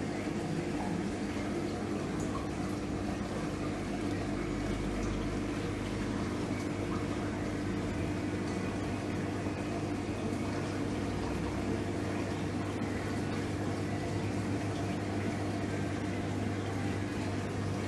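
Reef aquarium system running: steady trickle and splash of circulating water with a constant pump hum.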